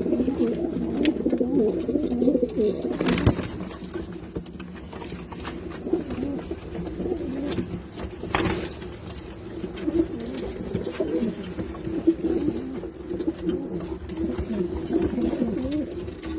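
Domestic pigeons cooing over and over, several birds overlapping in a low, wavering coo. Two brief sharp knocks cut in, about three seconds and eight seconds in.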